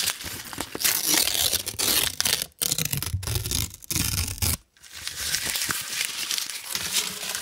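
Green 100-euro paper banknotes being crumpled and crinkled in both hands close to the microphone: a dense crackling rustle with a few brief pauses.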